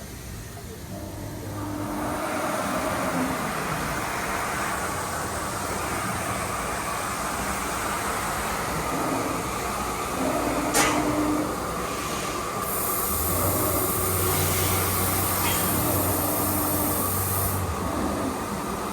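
Machinery running steadily, a continuous mechanical noise with faint steady tones. There is a single sharp click about eleven seconds in, and a low hum joins about thirteen seconds in and stops near the end.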